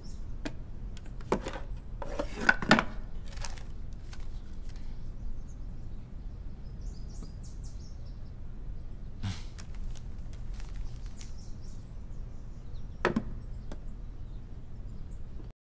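A small wooden box being handled: a few sharp wooden knocks and clicks, the loudest pair about two and a half seconds in, over a low steady room hum.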